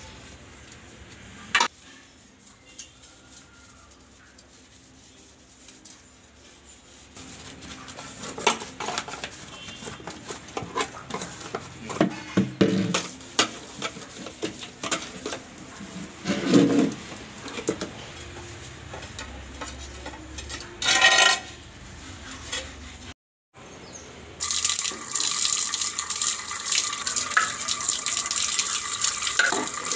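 Removable fridge shelves and drawers being washed at a sink: scattered clatter and knocks of the parts being handled, then, after a brief break, a tap running steadily for the last few seconds.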